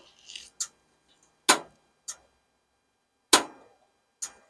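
Gas stove burner igniter clicking about once a second, the clicks alternating louder and softer, as the burner is being lit.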